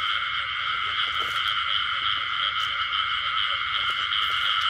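Dense, steady chorus of many frogs calling at once, their calls merging into one unbroken sound.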